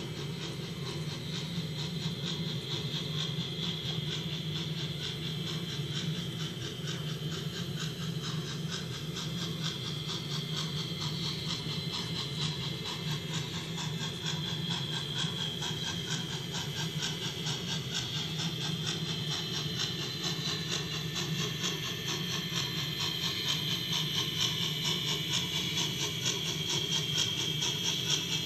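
Model Climax geared steam locomotive running on a model railroad: a rapid, even chuffing hiss over a steady low hum, growing louder as the engine draws near in the last few seconds.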